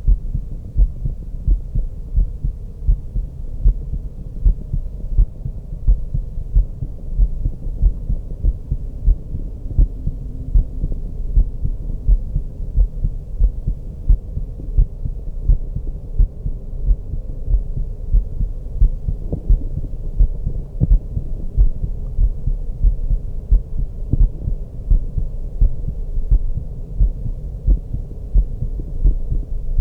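A woman's heartbeat heard through a stethoscope: regular, even low thumps that repeat steadily, over a faint steady hum.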